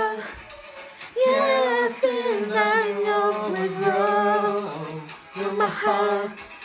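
Karaoke singing: a man sings a slow melody into a microphone, amplified over a music backing track, holding long wavering notes.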